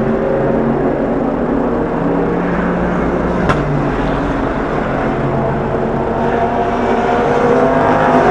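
SUPER GT race car engines working through the Suzuka chicane: several engines running at once, with a single sharp crack about three and a half seconds in. The engine notes rise in pitch near the end as the cars accelerate out of the chicane.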